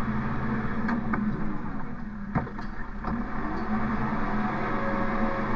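Engine running steadily, with a few light clicks and one sharper knock about two and a half seconds in.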